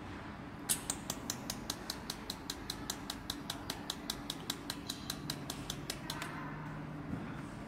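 Pulsed laser welding machine firing a steady run of sharp ticks, about five a second, for some five seconds, each tick one laser pulse placing a weld spot, over a low machine hum. The ticks stop about six seconds in.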